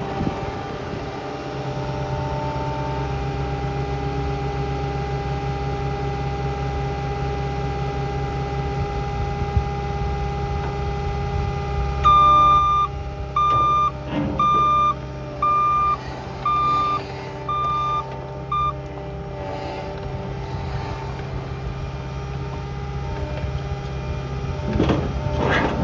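Cat 299D2 XHP skid steer's diesel engine running steadily. About halfway through, its backup alarm beeps seven times at about one a second, the sign that the machine is travelling in reverse. A louder burst of machine noise comes near the end.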